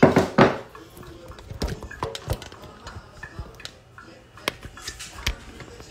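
Scattered clinks, taps and knocks of dishes and utensils on a kitchen counter, with a louder bump and rustle near the start as the camera is handled.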